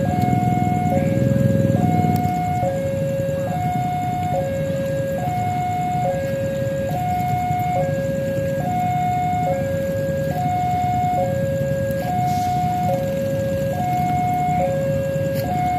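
Railway level-crossing warning alarm sounding a steady two-tone high-low pattern, each tone held just under a second, signalling that a train is approaching. Under it is the low rumble of road traffic waiting at the crossing.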